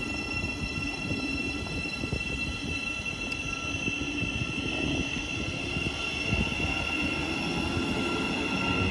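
Thameslink Class 700 electric multiple unit running along the platform: a steady high electrical whine over the rumble of its wheels on the rails.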